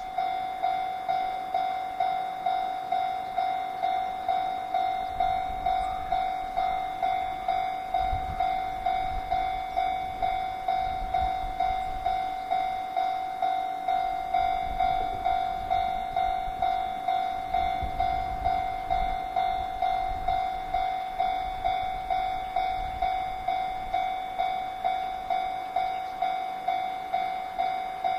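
Japanese railway level-crossing alarm ringing, one bright pitched clang repeated evenly about twice a second, the signal that a train is approaching the crossing. Low rumbles come and go beneath it.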